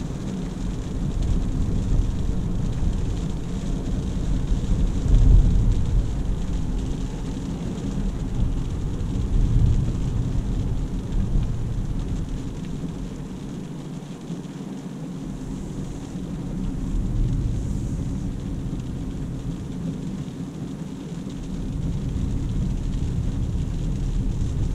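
Cabin noise of a DongFeng Forthing T5 EVO with its 1.5-litre turbo petrol engine, driving at city speed on a wet road: a steady low rumble of engine and tyres that swells and eases a few times as it drives on.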